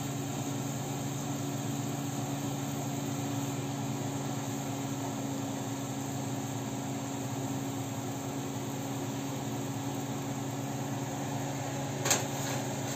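Steady mechanical hum with a faint hiss, like a kitchen fan running. About twelve seconds in there is one short knock as skewered donuts are set down on a metal baking tray.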